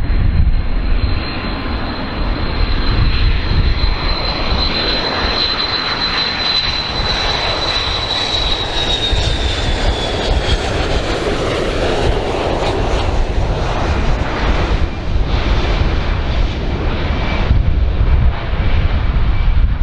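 Boeing 727 trijet's three tail-mounted jet engines on landing approach: a high whine over a steady rumble and roar. The whine drops in pitch as the jet passes, about nine seconds in.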